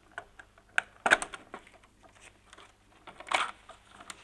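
Scattered small clicks and taps of plastic parts and a screwdriver as the air-conditioner indoor unit's circuit-board wiring is worked on. The loudest is a quick cluster of clicks about a second in, and a short scraping rattle follows past three seconds in.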